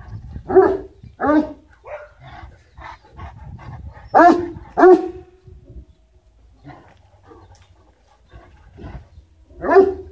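Spanish mastiff barking deep, loud barks in short pairs, with quieter barks between them. This is territorial guard barking at the fence line.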